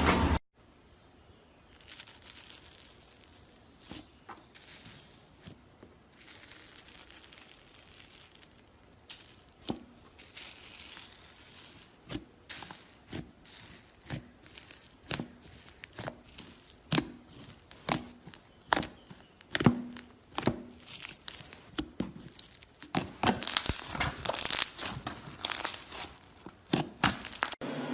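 Slime being squeezed, poked and stretched by hand, giving many small sharp pops and crackles at an irregular pace. They are sparse at first and grow denser and louder near the end.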